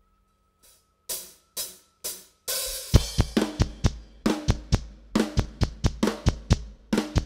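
Live rock drum kit: four count-in hits about half a second apart, then about three seconds in the full beat starts, with kick drum, snare and cymbals in a steady rock groove opening the next song.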